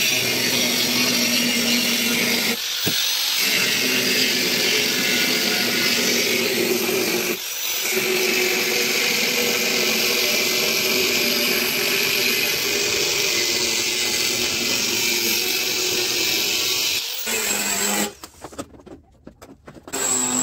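Handheld angle grinder running against a steel sheet, a loud steady high-pitched whine with two brief dips. It stops about 17 seconds in, and the sound falls away to a low level.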